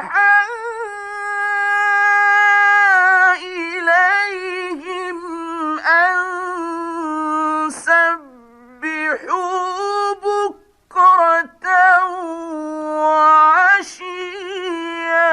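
A male Quran reciter chanting in the melodic mujawwad style: one high voice holding long drawn-out notes with wavering ornaments. The chant breaks off briefly about eight and eleven seconds in.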